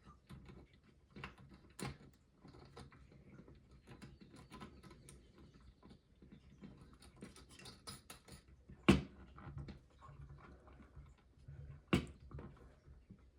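Light clicks, ticks and scrapes of hands working on a plastic toy ghost trap as the mounting nut of a new toggle switch is threaded on and tightened, with two sharper knocks about nine and twelve seconds in.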